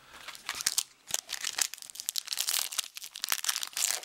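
Foil wrapper of a baseball card pack crinkling and tearing in the hands, a dense, irregular crackle.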